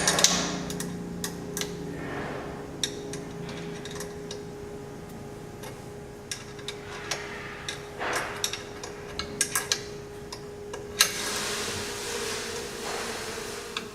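Wrench work on a metal adjustment bolt of a hinge-routing machine's butt router: irregular metallic clicks and taps as the bolt is turned in, over a steady machine hum.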